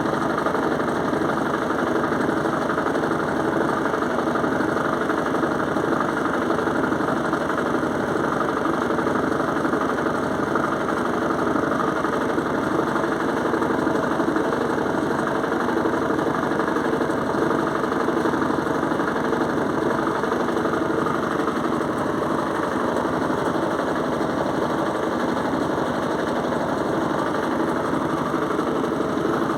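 Electrolux washing machine in its spin cycle with a heavy duvet inside, running steadily with a low rhythmic pulsing from the turning drum. The noise is loud enough to startle the owner, who takes it for normal.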